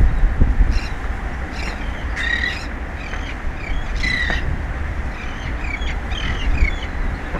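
Birds giving a string of short calls, with a quick run of chattering calls in the second half, over a steady low rush of wind on the microphone.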